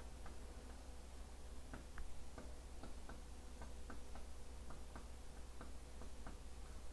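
Faint, fairly regular ticking, about three ticks a second, over a low steady hum.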